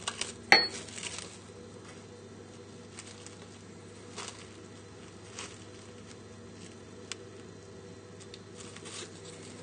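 Cling film crinkling and rustling faintly as it is pressed and smoothed down onto the surface of custard in a dish, with scattered small crackles and one sharp click about half a second in.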